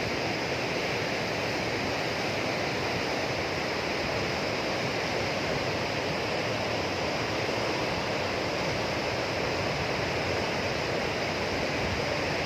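Fast current of the Bhagirathi river (upper Ganges) rushing steadily, an even wash of water noise with no breaks.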